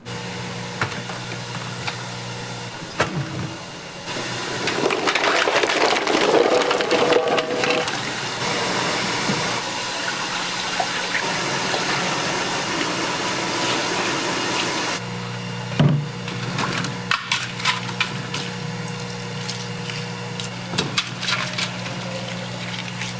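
Kitchen cooking sounds: a steady watery hiss of food cooking, with scattered clicks and knocks of utensils over a steady low hum. The hiss grows louder a few seconds in and eases back about two-thirds of the way through.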